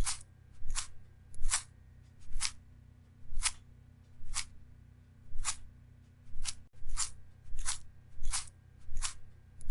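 A series of short, sharp swishing strokes, roughly one a second and speeding up slightly near the end, over a faint steady low hum.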